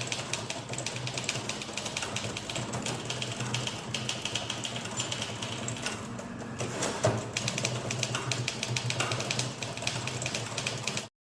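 Typewriter typed at speed, about 70 words a minute: a dense, rapid run of key strikes, with one louder knock about seven seconds in. It cuts off suddenly near the end.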